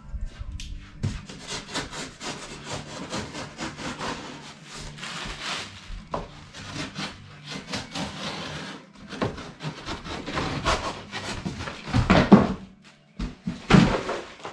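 Handling noise from unpacking a masonry saw: steady rubbing and scraping of packaging and parts, with two heavier knocks near the end.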